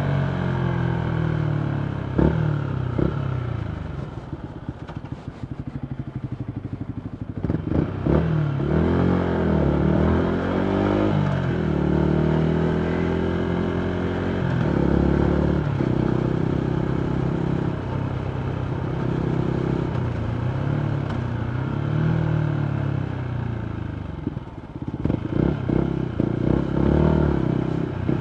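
Yamaha MT125 single-cylinder engine through a full Akrapovic exhaust, riding in traffic. The revs fall over the first few seconds, then it pops and crackles on the overrun with the throttle closed. It revs up through the gears about eight seconds in and holds a steady cruise, with more crackling near the end.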